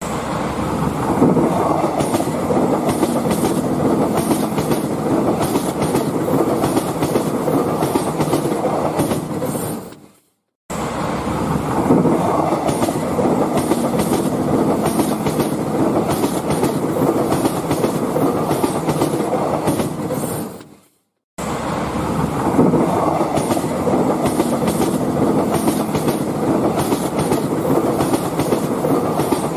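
Train passing: a steady rumble of railway cars with regular clicks of the wheels over rail joints. The same roughly ten-second clip plays three times, each time fading out before a brief silence and starting again.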